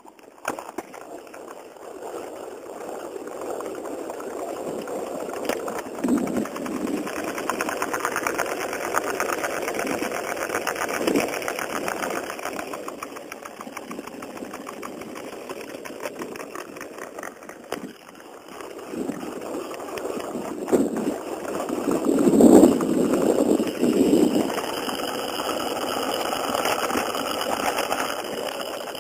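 RipStik caster board wheels rolling on pavement with a rapid, continuous ticking rattle from a wheel: an abnormal wheel noise that the rider first took for a failing bearing. It swells and fades, loudest about two-thirds of the way through.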